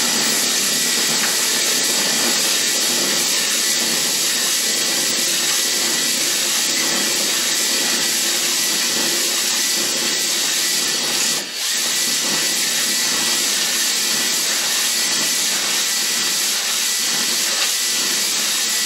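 A drill spinning a cylinder hone inside the bore of a Briggs & Stratton 11 hp engine block: a steady, loud whir and abrasive scraping hiss, with a brief dip about eleven and a half seconds in.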